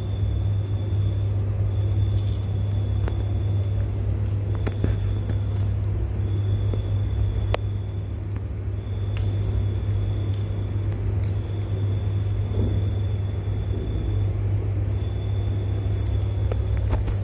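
A steady low hum, with a faint high whine that comes and goes every second or two and a few light clicks.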